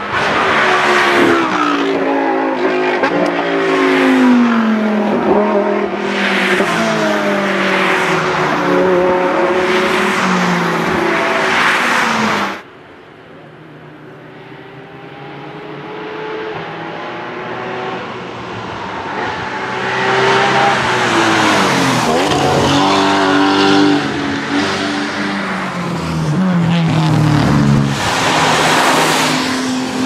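Racing car engines accelerating hard and revving up through gear changes as the cars pass one after another. About twelve seconds in, the sound cuts off abruptly, then another car's engine builds as it approaches and passes, followed by a further car.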